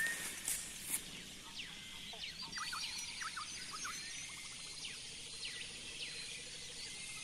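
Many birds calling: quick whistled chirps and short downward-sliding calls, scattered through, with a brief rapid trill. A steady high-pitched whine comes in about two and a half seconds in.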